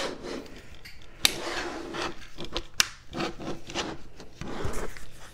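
Fishing rods being slid down into a polypropylene rod tube with a fabric top: rubbing and scraping of rod blanks, handles and foam against the tube walls, with two sharp clicks about a second and a half apart.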